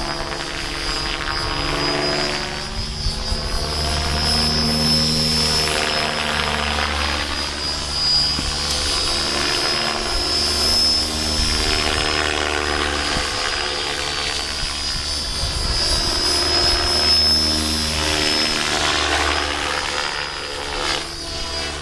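Compass 7HV radio-controlled helicopter in flight: a steady rotor drone with a high whine on top, its tone sweeping up and down as the model moves about.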